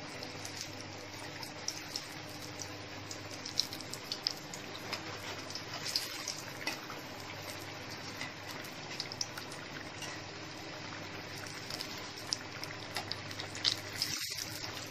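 Mirchi bada, batter-coated stuffed green chillies, deep-frying in hot oil in a steel kadhai: a steady sizzle with many small crackles and pops as they fry golden.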